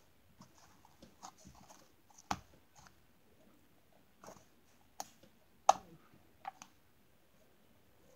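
Handling noise from a squishy slime-filled stress ball being squeezed and turned in the fingers close to the microphone: scattered soft clicks and taps, the sharpest a little over two-thirds of the way through.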